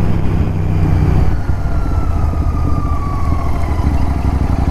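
Royal Enfield Continental GT 650's parallel-twin engine running through an aftermarket Red Rooster performance exhaust while riding. The engine note drops about a second in as the rider eases off the throttle.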